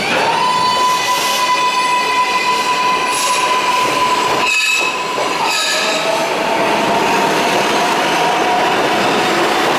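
R142A subway train pulling out of the station: its electric propulsion whine rises in pitch, then holds a steady tone over the rumble of wheels on rail. About halfway the tone breaks briefly, and a lower whine then climbs slowly as the train gathers speed.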